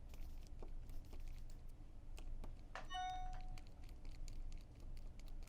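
Small clicks and taps of the hop-up chamber's small parts being handled and pulled apart, with one short metallic ping that rings for about half a second around the middle.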